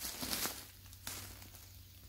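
Footsteps in dry bamboo leaf litter: a loud crisp rustle in the first half second, then a shorter one about a second in.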